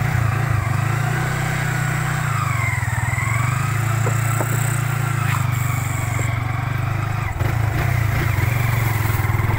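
Motorcycle engine running steadily as it rides along a bumpy dirt track, with a fainter whine that dips and rises and a few light clicks around the middle.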